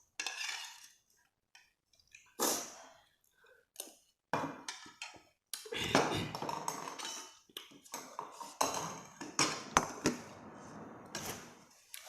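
Eating noises: cutlery clinking irregularly against dishes, with sharp clicks and short rustling, crunching bursts.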